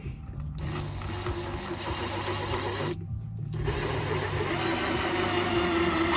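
Power drill driving self-tapping screws into sheet metal. The motor runs under load for about two seconds, stops briefly, then runs again for longer.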